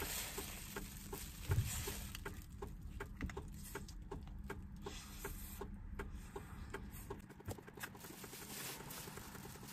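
Close-up chewing, lip-smacking and finger-licking while eating roast chicken, as a run of small irregular wet clicks, with the plastic bag around the chicken crinkling. A soft low thump about one and a half seconds in.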